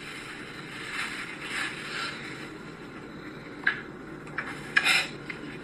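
Plastic storage drawers and their contents being handled, with low rattling and scraping and several sharp clacks about three and a half to five seconds in.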